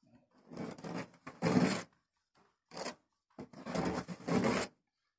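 Body filler being spread and drawn across a car door panel with a long flat spreader: three scraping strokes, the first and last over a second long and a short one between them.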